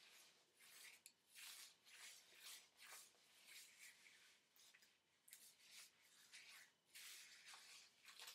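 Faint, irregular rustling and swishing of fingers twisting and handling damp, mousse-coated curly hair.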